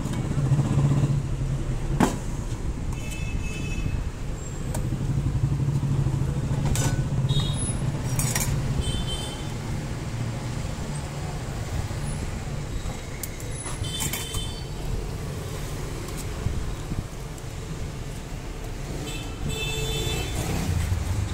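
Steady road traffic noise, vehicles running past, with short high-pitched sounds every few seconds and a sharp tap about two seconds in.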